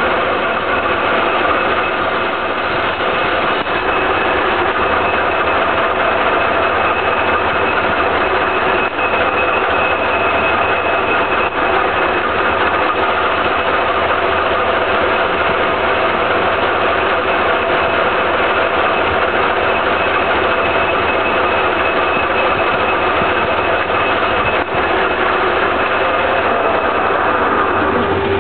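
Soviet 1K62 engine lathe spinning at 1250 RPM while a Sandvik carbide-insert tool turns a medium-carbon steel (C45) bar in a continuous cut at 0.26 mm/rev feed and 5 mm depth. A steady machine drone with a dense hiss and a few steady high tones, even in level throughout.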